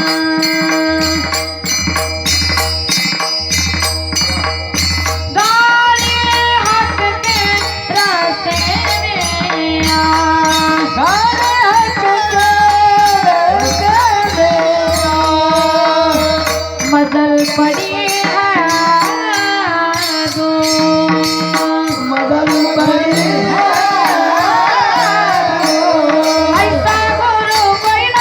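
A woman sings a devotional song with ornamented, gliding runs, over held instrumental notes, drum strokes and rhythmic percussion. Near the start the accompaniment carries the music; the voice comes in about five seconds in.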